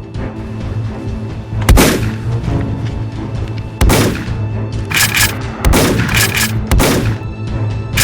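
Dramatic film soundtrack music with a steady low drone, cut through by about six loud, sudden gunshot-like bangs, each with a ringing tail. The first bang, about two seconds in, is the loudest.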